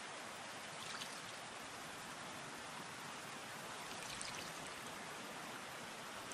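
Steady rush of flowing water at a hose-worked gold-mining pit, with a faint trickle about a second in and again about four seconds in as water runs off a shovel blade.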